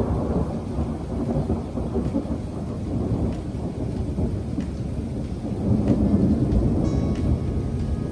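Thunder rumbling over steady rainfall; the rumble swells at the start and again about six seconds in.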